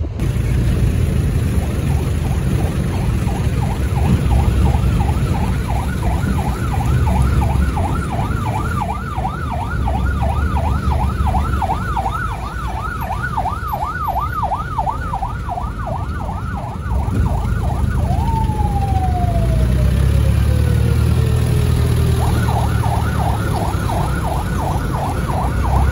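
Emergency vehicle siren on a rapid yelp, its pitch warbling up and down several times a second. After about 18 seconds it switches to a single wail that rises quickly and falls slowly over about four seconds, then goes back to the yelp. A steady low rumble runs underneath.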